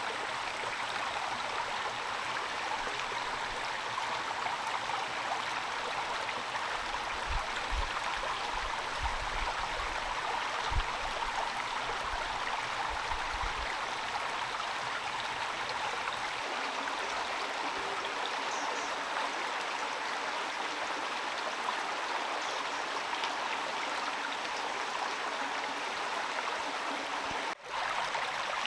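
Steady rain falling, an even, dense hiss, with a few low thuds about a quarter to halfway through.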